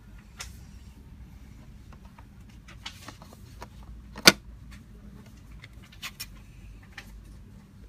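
Light clicks and taps of a DDR memory module with a metal heat spreader being handled in a black plastic memory tray, with one sharp, loud click about four seconds in as the module is seated into a slot.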